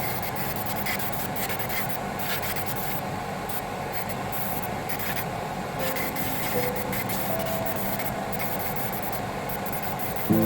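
Rubbing strokes, like hand filing or sanding, over soft background music that holds long notes; a new, louder chord comes in near the end.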